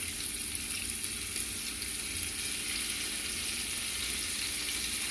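Chicken pieces sizzling steadily in melted butter in a frying pan as more pieces are laid in to sear.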